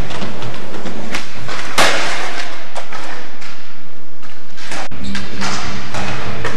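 Skateboard clacks, slaps and thuds on wooden ramps and the hall floor, a run of sharp knocks with one loud crash about two seconds in. About five seconds in the sound cuts to music with steady notes.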